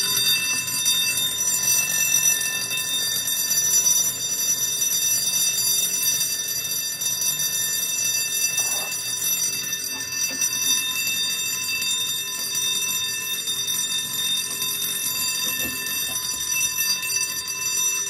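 A 24-volt DC vibrating fire alarm bell rings continuously after being set off from a manual pull station. It cuts off at the very end.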